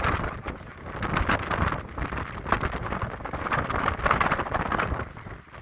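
Strong wind buffeting the microphone aboard a sailboat in heavy weather, with rushing water. The noise swells and eases in gusts every second or so.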